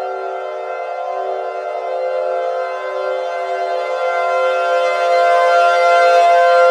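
Civil defense siren sounding a steady alert: several pitches held together with no rise or fall, getting louder about four to five seconds in.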